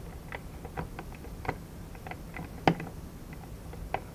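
Light, irregular clicks and ticks of a small screwdriver working on screws in a soldering station's housing, with one sharper click a little past halfway.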